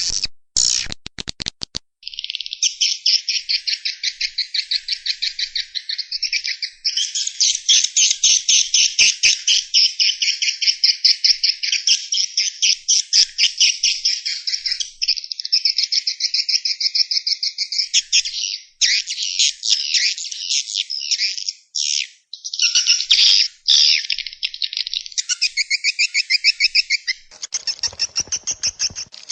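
Swiftlets twittering: a dense, high chirping made of rapid pulses, many a second, running almost without pause and breaking off briefly now and then.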